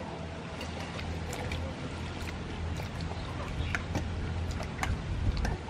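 Cut vegetables being handled in a stainless steel bowl: scattered light clicks and rustles over a steady low rumble.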